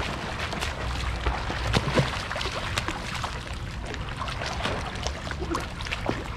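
A swimmer's freestyle strokes splashing, with water sloshing and slapping close to the camera in repeated short splashes.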